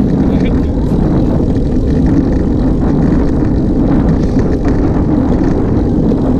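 Steady wind buffeting on a handlebar-mounted camera's microphone as a road bike rolls along at speed, a constant low rushing with no breaks.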